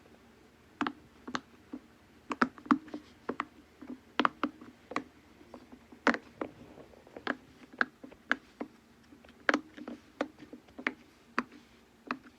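Silicone push-pop fidget toy (Pop It) having its bubbles pushed through from the back, one after another, each giving a short sharp pop. The pops come irregularly, about two to three a second, some louder than others.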